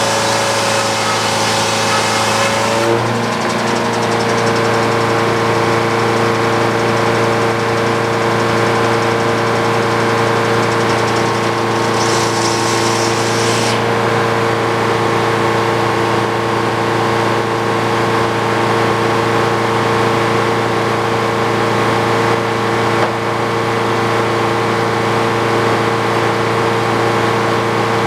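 Frick OO circular sawmill running steadily, its saw and power unit giving a constant hum and whine. A high hiss stops about three seconds in, with a small shift in pitch, and comes back briefly about twelve seconds in.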